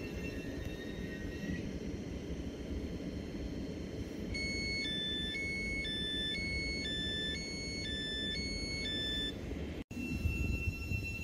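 An electric multiple-unit train hums and rumbles steadily at the platform, with a faint rising whine in the first couple of seconds. From about four seconds in, a two-note electronic beep alternates high and low, about three notes a second, for some five seconds.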